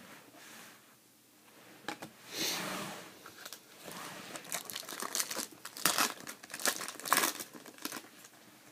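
Foil trading-card pack wrapper being torn open and crinkled, with a run of sharp crackles that starts about two seconds in.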